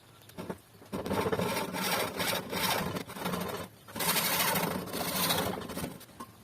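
Japanese pull saw cutting wood by hand: two runs of quick rasping strokes with a short pause between them, after a few light taps at the start.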